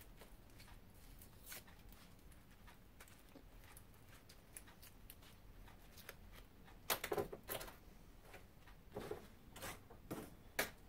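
Paper insulation being peeled and torn off copper transformer winding wire by gloved hands: faint rustling and crackling, with louder clusters of crinkles and clicks about seven, nine and ten seconds in.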